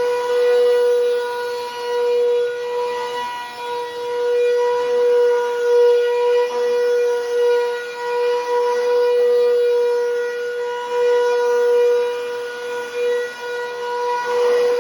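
Bissell Powerforce Helix Turbo upright vacuum running, extremely loud, with a steady high whine over a rushing noise, its loudness swelling and dipping. The owner puts the noise down to the machine having sat a long time without cleaning.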